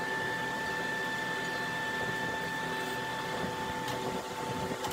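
Steady hum of workshop machinery running, with a constant high whine and a faint click near the end.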